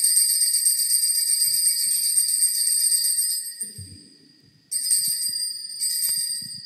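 Altar bells jingling in one long shaken ring that stops a little under four seconds in, followed by two short rings. They mark the elevation of the chalice at the consecration of the Mass.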